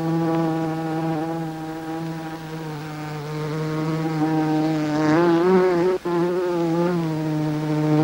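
Honeybee buzzing: a steady, low buzz rich in overtones, which wavers in pitch about five seconds in and cuts out for an instant about a second later before going on.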